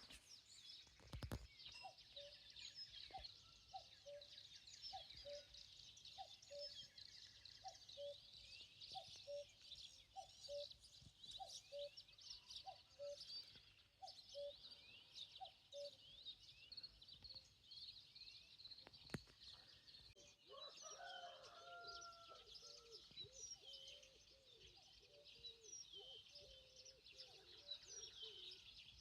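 Faint morning chorus of small songbirds, many quick chirps and twitters overlapping. Through the first half a lower two-note call repeats evenly about once a second, and later a lower, more varied calling joins in.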